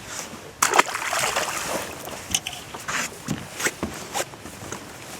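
A sudden splash into water a little under a second in, followed by about a second of sloshing and then a few short knocks.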